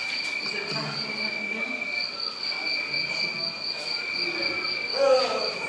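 A steady, high-pitched, cricket-like trill that pulses slightly, with faint voices underneath.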